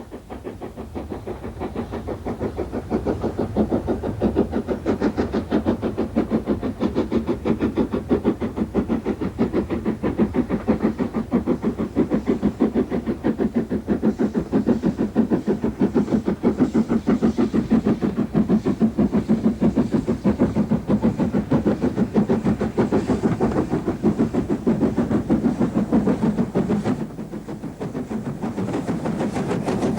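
Great Central Class D11 4-4-0 steam locomotive working a train, its exhaust beating in a rapid, steady rhythm. It grows louder over the first few seconds and drops back briefly near the end.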